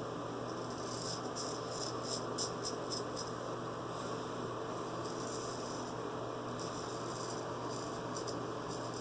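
A steady electrical hum, with faint short scratchy strokes of a straight razor scraping through lathered whiskers in two clusters, a second or so in and again near the end.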